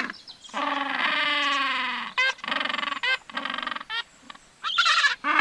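A large bird calling: one long, slightly falling call about half a second in, then a string of short calls, and a louder run of calls near the end.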